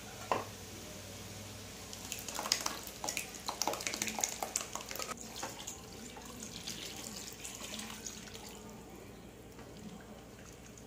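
Cooked dal and water poured into a hot aluminium kadai of sautéed vegetables for sambar, with sizzling and the clicks and scrapes of utensils on the pan for a few seconds, then a fainter hiss as the liquid settles and is stirred.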